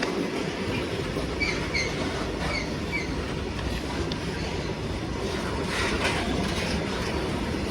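Freight train's wagons rolling past on the rails with a steady rumble, with a few short, high wheel squeaks in the first few seconds.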